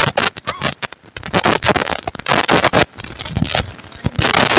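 Crunchy snacks being chewed: irregular crisp crackles and crunches, with denser, louder bursts about two seconds in and near the end.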